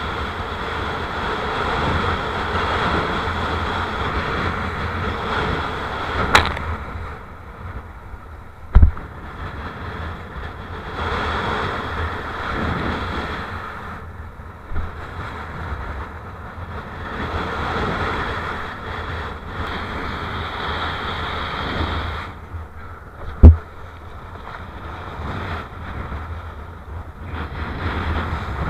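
Strong wind buffeting a kitesurfer's camera microphone, over the rush of a board planing across choppy water; the rumble swells and eases every few seconds. Three sharp knocks cut through it, a small one about six seconds in and two loud ones around nine and twenty-three seconds in.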